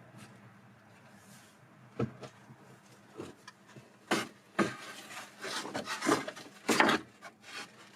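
Reclaimed wooden boards being handled: a sharp knock about two seconds in, then a run of scrapes and knocks as boards rub and bump against each other.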